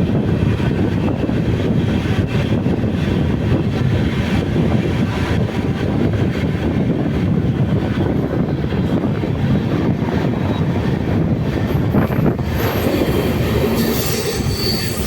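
Janshatabdi Express passenger train running at speed, heard from on board: a steady, loud rumble of wheels on the track. Over the last few seconds a brighter hiss and a thin high tone join in.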